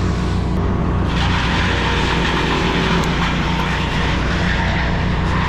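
An engine running steadily, joined about a second in by a loud, rough rushing noise that carries on.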